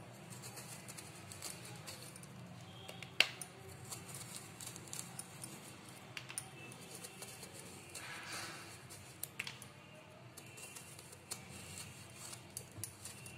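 Knife slicing a peeled bottle gourd into thin rounds: faint, crisp cutting sounds and scattered light clicks as slices drop onto a steel plate, with one sharper click about three seconds in.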